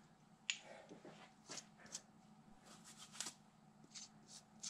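A few faint, sharp clicks and light rustles of small hardware being handled: a screw and a black round knob or bushing turned over in the hands.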